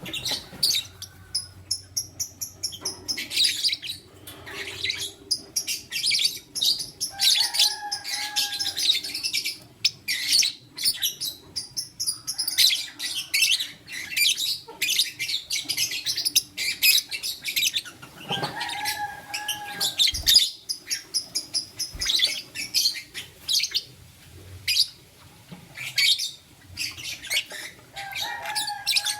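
A pair of lovebirds, one of them a lutino, chirping constantly in fast, high-pitched twitters. A lower, longer call breaks in three times, about every ten seconds.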